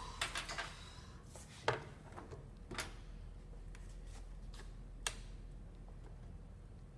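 A few sharp clicks and knocks of plastic hand-mixer parts and tools being handled during a teardown: a quick cluster at the start, the loudest knock under two seconds in, and single clicks near three and five seconds in, over a faint low hum.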